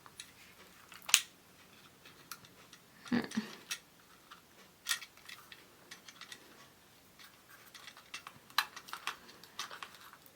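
Scattered light clicks and short rustles of a small plastic toy figure and its plastic wrapping being handled, with a sharper click about a second in and a cluster of clicks near the end.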